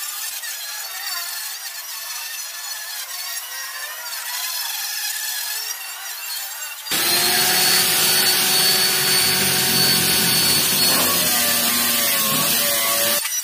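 Electric angle grinder with a wire cup brush scrubbing rust off a car's steel frame. For the first half it sounds thinner and higher. About seven seconds in it turns suddenly loud and full, a steady high whine, and the pitch wavers down near the end as the brush is pressed into the metal.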